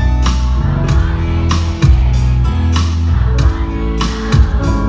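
Live band playing an instrumental passage between sung lines: acoustic guitar and keyboard over a steady drum beat, with no singing.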